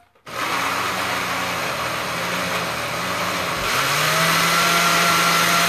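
Countertop blender switched on at high speed just after the start, chopping cauliflower florets in water. About three and a half seconds in, the motor note jumps up, and it runs steadier and louder.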